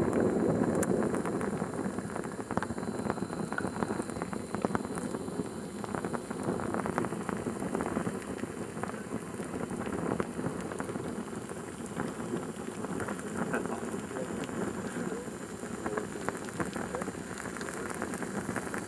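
Flames crackling right at the built-in microphone of a DV camcorder that is itself burning: a dense, steady crackle of many small pops, loudest in the first second or so.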